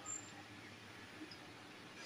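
Quiet room tone with a brief, faint, high-pitched chirp just after the start.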